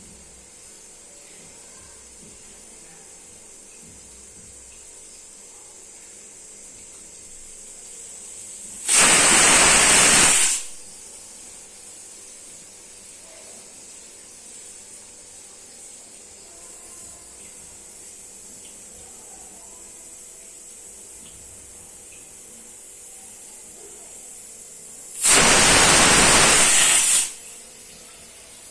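Indian pressure cooker whistling twice, about sixteen seconds apart: each whistle is a loud, hissing blast of about two seconds as the weight on the vent lifts and releases built-up steam pressure.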